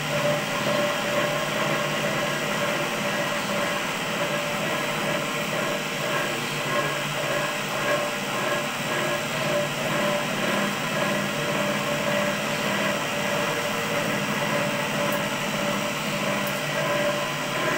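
Arumanis (cotton candy) machine's electric motor running steadily, an even mechanical hum with a constant whine.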